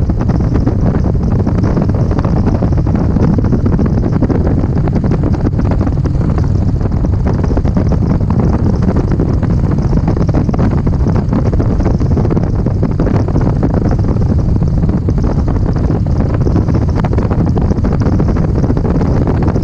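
Wind buffeting a microphone carried on a vehicle moving along a road: a steady, loud rush with a low rumble under it.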